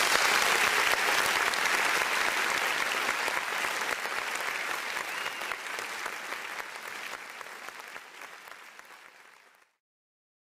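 Crowd applauding, fading out steadily and gone by about nine and a half seconds in.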